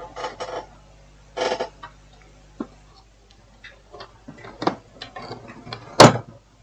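Irregular clicks and knocks of tools and equipment being handled on a repair bench, with one sharp knock about six seconds in the loudest. Two short tonal bursts come in the first two seconds.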